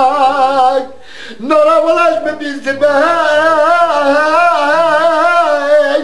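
A man singing unaccompanied, holding long notes with a wavering, ornamented pitch, and breaking off for a breath about a second in before singing on.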